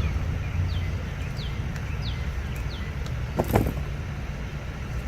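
A bird repeats a short, high, downward-slurred note about every 0.7 seconds over a steady low rumble. A brief louder rustle or knock comes about three and a half seconds in.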